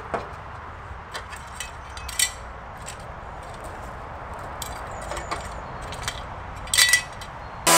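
Short cut lengths of hollow aluminium ladder rung clinking against each other as they are picked up and gathered by hand: a scatter of light metallic clinks, the loudest a little after two seconds and near the end. A much louder steady sound cuts in suddenly at the very end.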